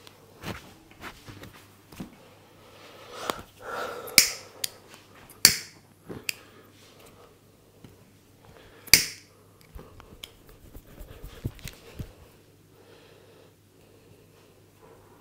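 Hands working over a head in a head massage: soft taps and rubbing, with three loud, sharp smacks about four, five and a half and nine seconds in.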